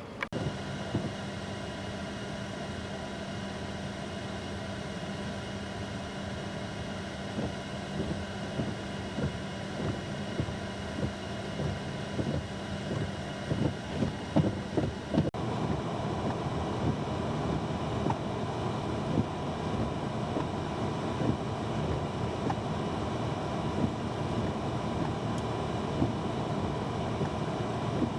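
Blizzard wind blowing steadily and gusting against the microphone, loudest in a run of gusts about halfway through. A steady low hum sits under the first half and stops, and the sound changes abruptly a little later.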